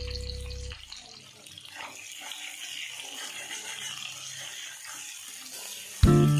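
Chopped onions sizzling in hot oil in a steel wok as they are stirred with a metal spatula: a soft, steady hiss. A held music note fades out at the start, and guitar music comes in near the end.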